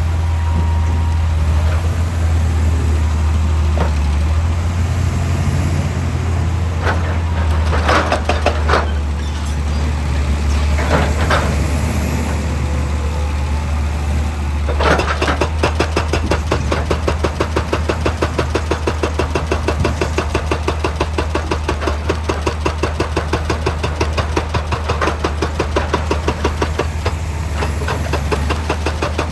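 Hitachi EX200 excavator's diesel engine running steadily, with short clattering bursts about a third of the way in. From about halfway a fast, even pulsing sets in over the engine.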